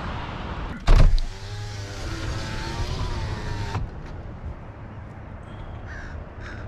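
Road noise inside a moving car, cut by a loud thump about a second in. Then a car's electric power window motor whirs for about two and a half seconds and stops abruptly, leaving a quieter outdoor hiss.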